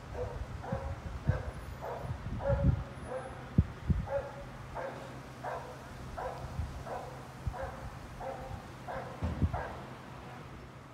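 A dog barking over and over, short barks a little under two a second, with low wind thumps on the microphone.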